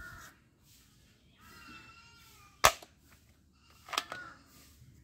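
Spring-loaded plastic toy rifle firing: one sharp, loud snap about two-thirds of the way through, then a lighter click about four seconds in as the gun is cocked again. A crow caws twice in the background.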